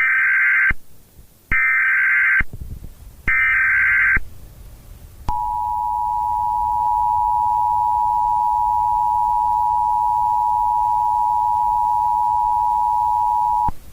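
Emergency Alert System alert: three short screeching bursts of SAME header data, each under a second and about a second and a half apart, then the steady two-tone EAS attention signal held for about eight seconds before cutting off.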